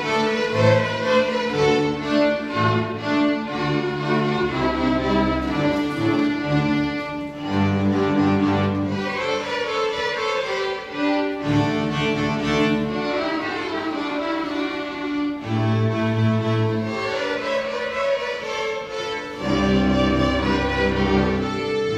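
A student string orchestra of violins, cellos and double bass playing, bowed notes held over a low bass line that moves in notes a second or two long.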